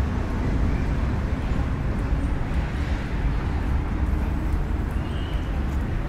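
Steady low outdoor rumble with no clear source, heaviest in the bass and fluttering in level, with a faint short high chirp near the end.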